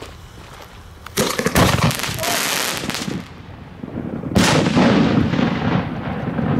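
Fireworks mortar tube firing an aerial shell, with a crackling, hissing spray from the crackling balls packed in with it, about a second in. About four seconds in the shell bursts in a bang that rumbles on for over a second.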